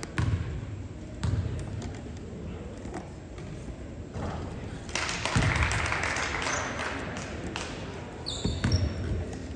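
A basketball bouncing on a gym court, with several hard thumps. Crowd voices swell about halfway through, and a few short high squeaks come near the end.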